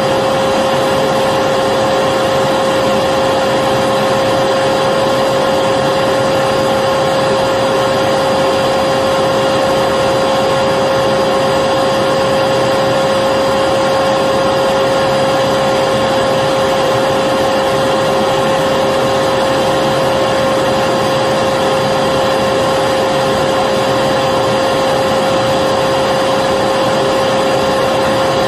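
Vacuum cleaner running steadily, a constant hiss with a steady hum-like whine that does not change.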